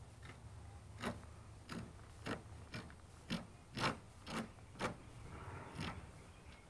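Sharp knife cutting through an alligator gar's hard, scaly hide: a run of crisp clicks, about two a second, from about a second in until near the end.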